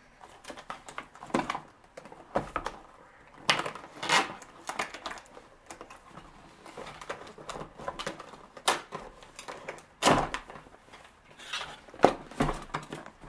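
Cardboard camera box being handled and opened by hand: scattered scrapes, taps and rustles of the cardboard and its flaps, with several sharper knocks spread through, the loudest about ten and twelve seconds in.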